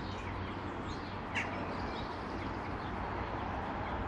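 Outdoor background: a steady low hum of ambient noise with a few birds chirping, one clearer chirp about a second and a half in.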